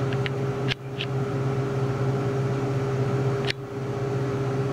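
Steady low mechanical hum with a steady tone above it, broken by two brief clicks, one under a second in and one about three and a half seconds in.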